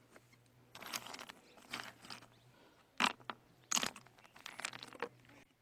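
Irregular crunching and scraping of stone, with two sharper knocks about three and four seconds in.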